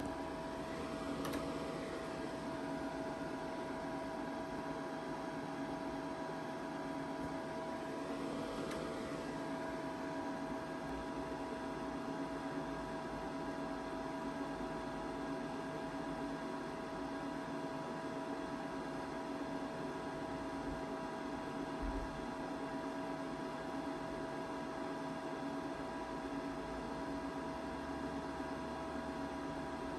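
Steady electrical hum and whine from a powered-on Agilent 86100A oscilloscope, its cooling fans and electronics running over a faint hiss. There are two faint brief swells, about a second in and near nine seconds.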